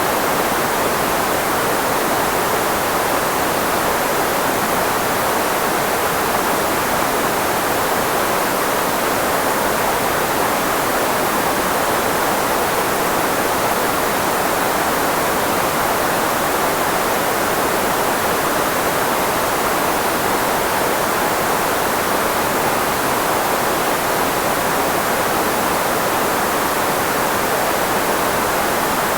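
Steady filtered white noise, a constant hiss shaped to cover the frequencies of the human voice, loudest in the middle range and thinner in the lows and highs.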